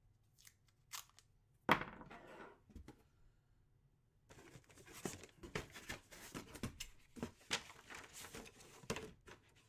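Packaging being torn open and crinkled by hand: a few light clicks, a sharp rip a little under two seconds in, then several seconds of continuous crinkling and rustling.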